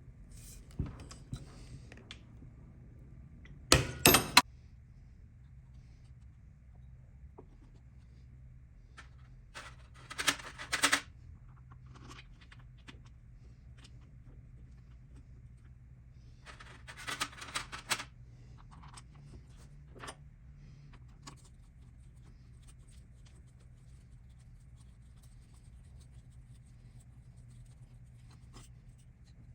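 Metal hand tools and small engine parts clinking and rattling in three short bursts spread through the stretch, with a few lone ticks in between, over a steady low hum.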